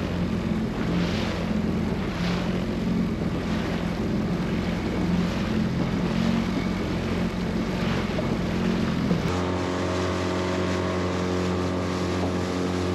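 Outboard motor of an inflatable dinghy running under way, with wind on the microphone and water rushing past the hull. About nine seconds in, the sound changes abruptly to a steadier, cleaner engine drone with less wind.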